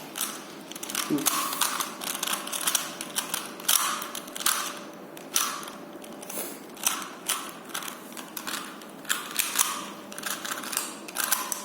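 Rubik's cube layers being turned quickly by hand: irregular plastic clicks and short scraping turns, several a second.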